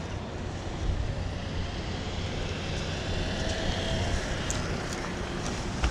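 Wind rumbling on an action-camera microphone over outdoor street noise, with a car coming up the street a little past the middle.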